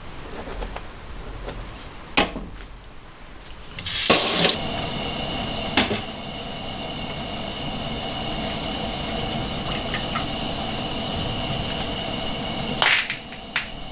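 A click, then about four seconds in water starts running steadily from a tap, with a faint high whistle through it; it cuts off with a short burst near the end.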